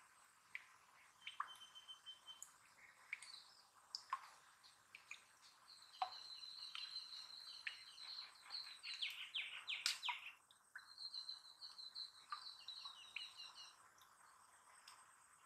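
Faint background birdsong: a small bird giving a fast run of high, repeated chirps. It starts about six seconds in, breaks off briefly and resumes, over scattered faint clicks.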